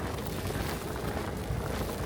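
Steady low rumbling street noise in a snowstorm, with no clear single event.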